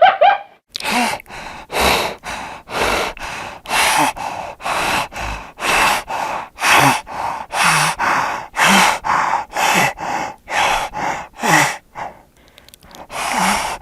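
Spotted hyena giving a rapid series of short, breathy huffs, about two a second, some with a low grunt in them. The series breaks off briefly near the end before starting again.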